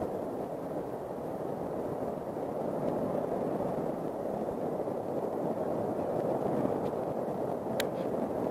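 Ruptured natural gas pipeline burning as a huge fireball, giving a steady, even rush of noise. A brief sharp click near the end.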